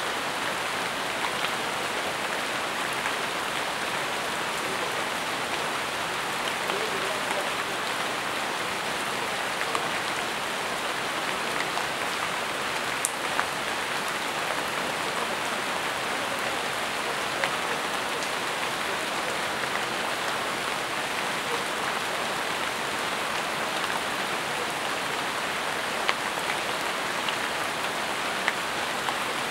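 Steady rain falling on jungle leaves, an even hiss with scattered sharper drop ticks.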